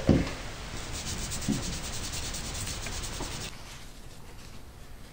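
Steady scrubbing and rubbing on the oil-soaked bolt of a Freedom Ordnance FX9 9mm carbine as it is cleaned, with a knock right at the start.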